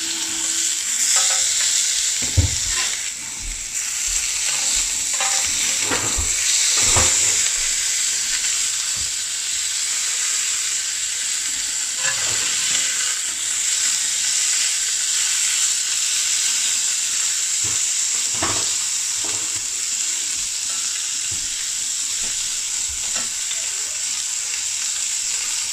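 Minced-meat kebab patties sizzling steadily in butter ghee on a cast iron grill pan. A spatula knocks and scrapes against the pan as it turns them, several times in the first seven seconds and once or twice later.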